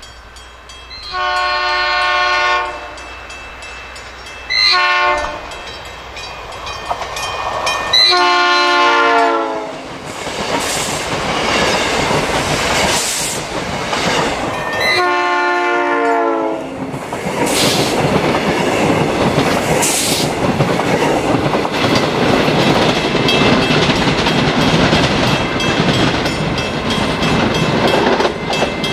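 South Shore Line electric multiple-unit commuter train sounding its horn in four blasts, the second one short and the last two falling in pitch as the train draws level and passes. From about halfway in, the rush of the cars and wheels on the rails going by fills the rest.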